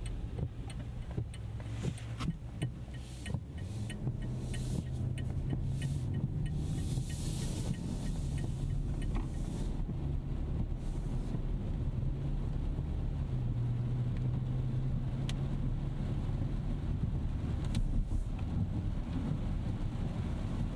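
Rolls-Royce Ghost Series II's 6.75-litre twin-turbo V12 running steadily while driving on a wet road, with tyre hiss and scattered light ticks of rain on the car. The drone swells about four seconds in.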